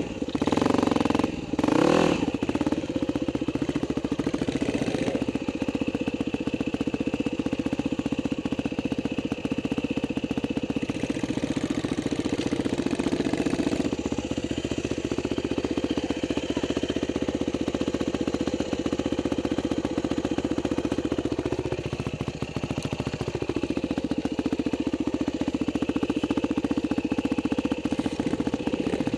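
Dirt bike engines running at low revs, with a few quick throttle blips in the first two seconds and one rise and fall in revs about three-quarters of the way through.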